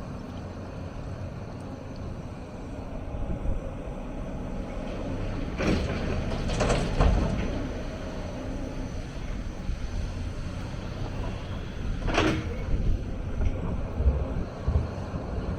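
Hyundai 290 crawler excavator's diesel engine running steadily under work, with two brief louder rushing sounds, about six seconds in and again about twelve seconds in.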